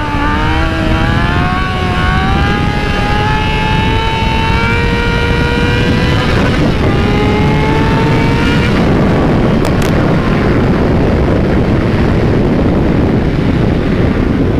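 Yamaha YZF-R6 inline-four engine pulling under throttle while riding, its pitch rising slowly with a short break about six and a half seconds in. From about nine seconds in the engine note fades under a steady rush of wind on the helmet microphone.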